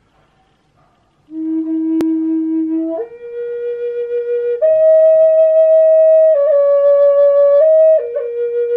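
Wooden Native American flute in the key of E playing a slow run of long held notes. It comes in about a second in on the low root note, then steps up to higher notes and settles back down near the end.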